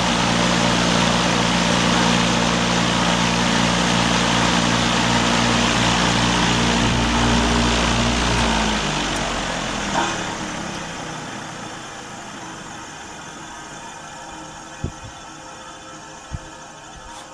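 A 1953 Hartzell 12-inch exhaust fan running at full speed: a steady electric-motor hum under a loud rush of air. The hum stops about nine seconds in as the power is cut. A click follows, and the blade coasts down with its air noise slowly fading.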